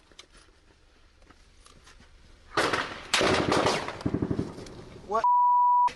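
A quiet lull, then from about two and a half seconds in, loud bursts of rapid automatic gunfire. Near the end comes a short, steady beep tone.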